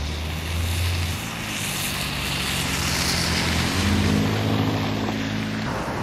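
Blizzard wind gusting over the microphone, swelling to a loud hiss about halfway through, over the steady low hum of a car's engine as it drives past on the snowy road.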